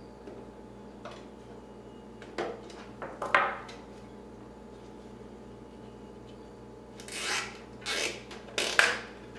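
Nylon zip tie being threaded through plastic cable tie mounts and pulled, heard as short rasping scrapes and rubs in a few bursts, busiest near the end. A faint steady hum lies underneath.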